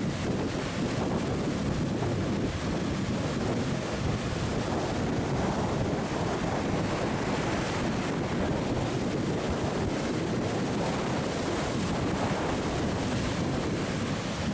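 Sea surf washing and breaking against rocks, a steady rushing noise, with wind buffeting the microphone.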